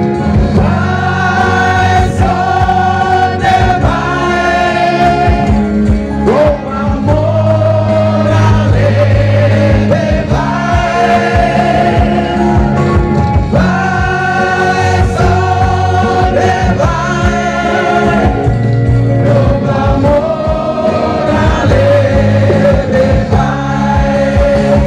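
Several men singing a song together into microphones, backed by a live band with electric guitar and keyboard, through a loud PA.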